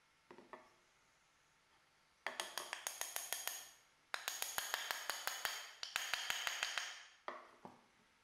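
Wooden mallet tapping rapidly on pine rails to drive glued dowel joints home: three quick runs of light strikes, about seven or eight a second, with a few single knocks before and after.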